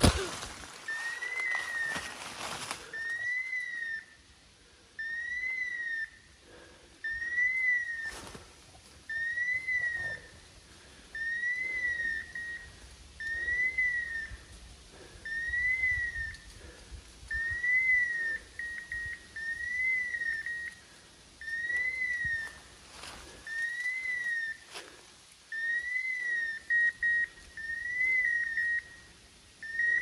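Hunting dog's beeper locator collar sounding a short electronic chirp that rises and falls in pitch, repeated evenly about every second and a half to two seconds, with a few quick double beeps in the second half. Loud rustling through brush in the first few seconds.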